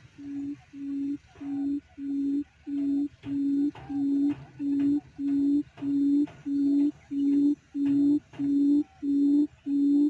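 Quail lure call: a steady series of low hooting notes, close to two a second, growing louder over the first few seconds, calling quail toward the trap.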